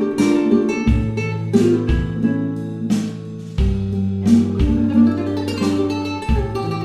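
Background music: an acoustic guitar piece of plucked notes over low bass notes.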